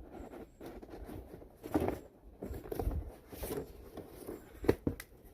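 Handling noises from a sealed Sega Genesis game box being turned over and looked at: irregular rustling and light knocks, with one sharp click a little before the end.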